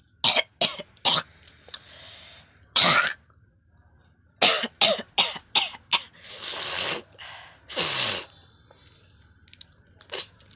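A person deliberately coughing in bouts of short, sharp coughs separated by pauses, with a few longer, raspy throat-clearing sounds in between.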